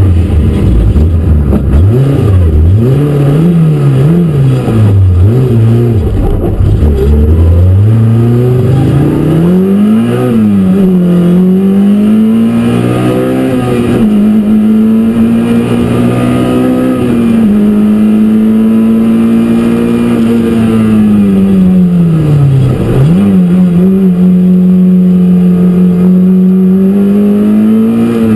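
Peugeot 205 Rallye Group A race car's four-cylinder engine heard from inside the cabin, driven hard: the revs fall sharply at the start and waver low for several seconds, then climb with a couple of short breaks for upshifts and hold high. Near the end the revs dip sharply once, as for braking and a downshift, and pick up again.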